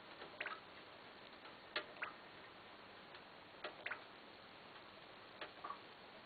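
Faint short clicks, mostly in pairs about a quarter of a second apart, a pair every one and a half to two seconds, over a low steady hiss.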